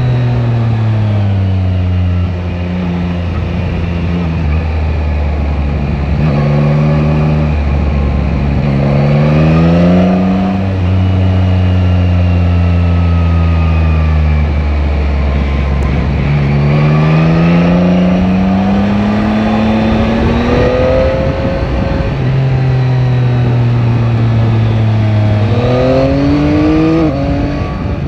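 Yamaha Tracer 9 GT's 890 cc inline three-cylinder engine under way. The revs climb and drop several times, with a long steady easing-off in the middle and a strong pull back up after it, over steady wind noise.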